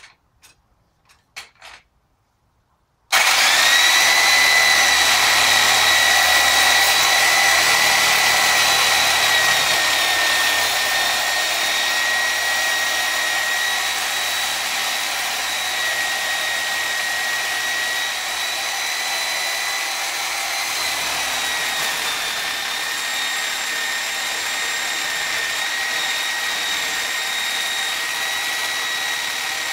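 Heavy-duty electric drill starting up about three seconds in and running with a steady whine, driving the engine stand's rotating head so the mounted small engine turns slowly.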